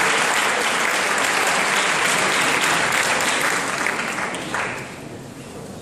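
Audience applause, a large crowd clapping in a hall, loud at first and dying away about four and a half seconds in.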